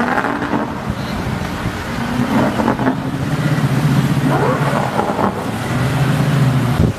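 Motor engine humming steadily at a low pitch, briefly rising in pitch about four and a half seconds in, with wind rumbling on the microphone.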